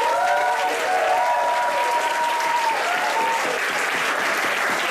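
Audience applauding at a steady level, with a few voices cheering over the clapping in the first three seconds or so.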